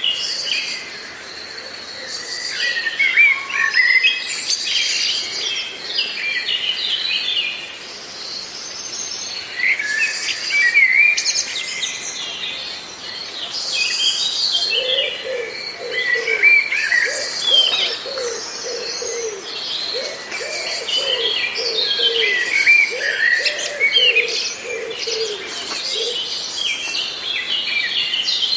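Several birds chirping and singing at once, with quick high trills and twitters overlapping throughout. From about halfway in, a lower call repeats in a steady series of short notes for some ten seconds.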